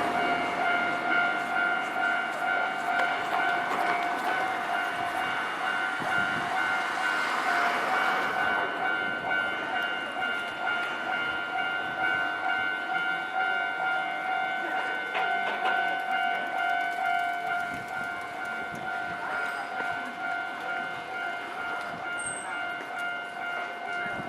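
Japanese level-crossing warning bell ringing with a steady, repeating electronic clang. For the first eight seconds or so a Nankai Main Line train passes over the crossing, a loud rushing rumble that then stops while the bell keeps ringing.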